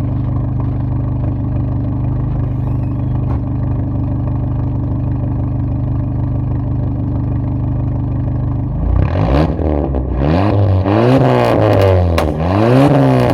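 Turbocharged car engine heard at the exhaust, idling steadily, then revved several times from about nine seconds in, its pitch rising and falling with each blip.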